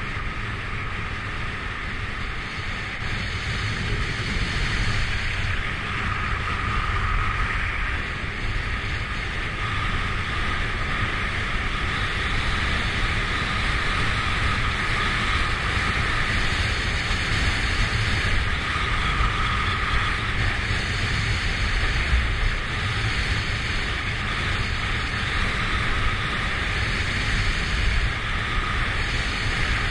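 Wind rushing over the microphone of a camera carried by a downhill skier, mixed with the hiss of skis sliding on packed snow. A steady noise that grows a little louder about four seconds in.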